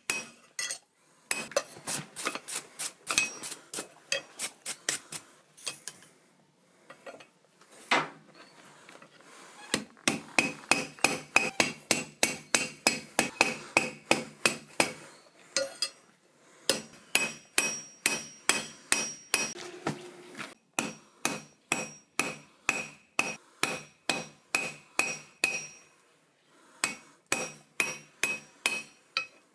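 Blacksmith's hand hammer striking hot steel on an anvil in quick runs of about three blows a second, broken by short pauses; each blow leaves a brief metallic ring.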